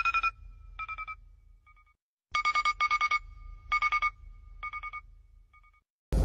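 An electronic telephone-style ringtone: a fast trilling ring on two pitches, sounding in short rings grouped in twos and threes, each group trailing off in fainter echoing repeats, with a low hum beneath. A short loud burst of noise cuts in at the very end.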